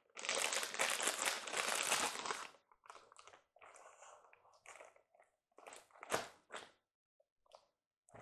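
Packaging crinkling and rustling as a model locomotive is lifted out of its box: a long stretch of dense crinkling for the first two and a half seconds, then shorter separate rustles, with one sharp snap a little after six seconds.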